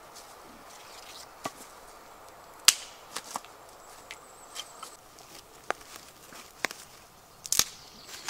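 Dry twigs and sticks being snapped by hand for kindling: a series of sharp, separate cracks, the loudest about two and a half seconds in and a quick double crack near the end.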